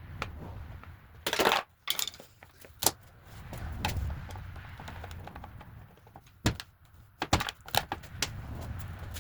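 Scattered sharp metal clinks and knocks of hand tools and loose hardware while unbolting the radiator from a dirt bike, with a louder clattering rattle about a second and a half in.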